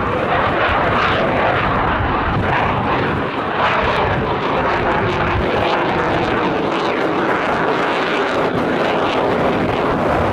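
Loud, steady jet noise of a Eurofighter Typhoon's twin EJ200 turbofan engines in flight, a dense rushing noise with a faint wavering whine in it.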